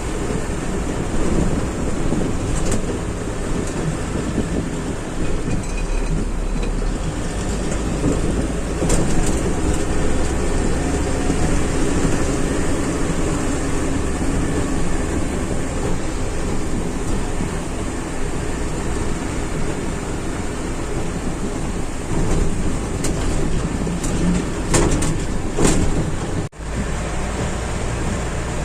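Steady rumble and hiss of a heavy vehicle working in the rain at a container port. Near the end come a few sharp knocks, then a brief drop-out.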